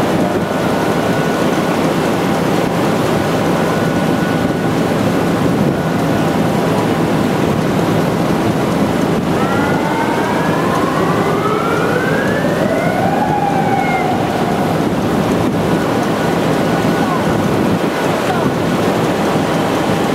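Steady, loud rushing roar of steel-mill plant. About halfway through, a pitched whine with overtones rises slowly for about four seconds, then falls away.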